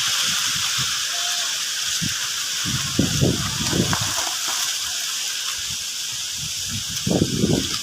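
Strong wind blowing in a steady hiss, with gusts buffeting the microphone in low rumbles around three seconds in and again near the end.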